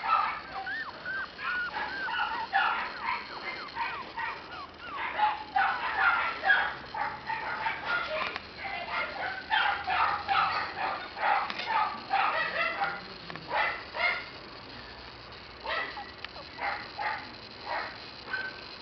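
Shiba Inu puppies yipping and whining in quick runs of short, high calls, thinning out after about fourteen seconds.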